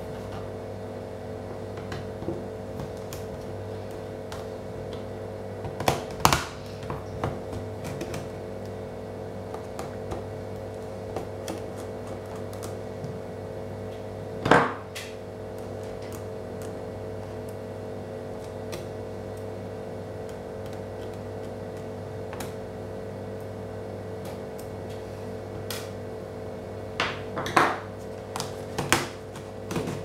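Sharp plastic clicks and snaps as a plastic pry tool works loose the Dell Latitude D430 laptop's trim and keyboard: a few loud snaps about six seconds in, one about halfway, and a cluster near the end. A steady low hum runs underneath.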